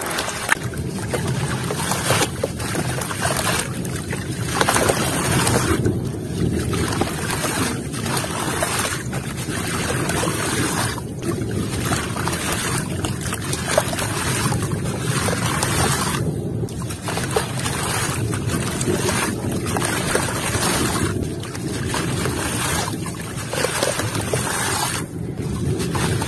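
Lumps of wet mud and gritty dirt squeezed and crumbled by hand into a tub of water: continuous splashing and sloshing as the crumbling grit falls into the water, easing briefly every few seconds.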